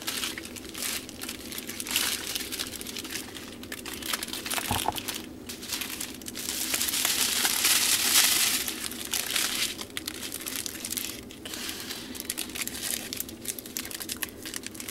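Small clear plastic packets of diamond painting drills crinkling and rustling as they are picked up and handled, loudest from about six to nine seconds in.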